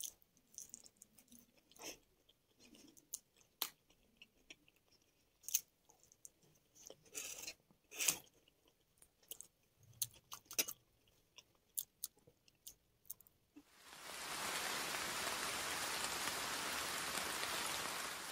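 Close-miked chewing of a last bite of chilli Manchurian, with scattered wet clicks and short crunches. About two-thirds of the way through, a steady, even hiss like rain or static starts and stays louder than the chewing.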